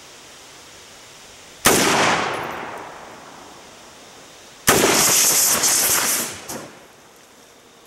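Two shots from a PSL-54c rifle in 7.62x54R, about three seconds apart. The first is a sharp crack that echoes away over about a second. The second is followed by about a second and a half of loud, hissing, rushing noise that then drops off abruptly.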